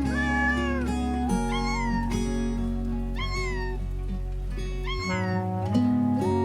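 Cat meows, about six short rising-and-falling calls, over background music of held chords that change twice.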